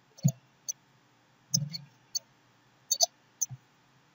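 Computer mouse and keyboard clicks: about six separate sharp clicks, unevenly spaced, some with a soft low thump under them, as a query is selected and run.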